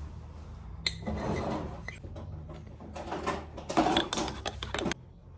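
Instant coffee being spooned from a glass jar into a ceramic mug. A sharp click comes about a second in, then scraping, and a quick run of spoon clicks and scrapes near the end.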